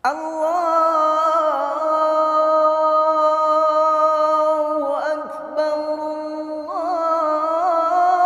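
A man's voice chanting the adhan, the Islamic call to prayer, drawing out 'Allahu akbar' in long, ornamented notes in maqam nahawand. The voice comes in suddenly at the start, breaks briefly about five seconds in, then carries on with wavering turns.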